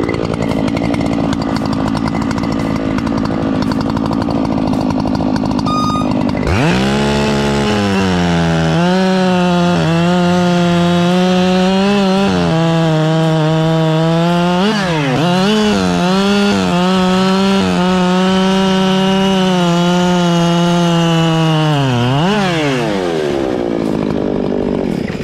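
Two-stroke chainsaw engine running at high revs. It sounds rough and noisy at first, then about six seconds in switches to a clean, high, steady note with a few brief dips, and falls away near the end.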